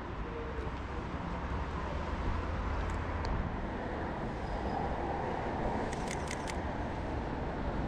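Sony a7 mirrorless camera shutter firing in a quick cluster of sharp clicks about six seconds in, as a photo is taken. A steady low rumble of street background noise runs underneath.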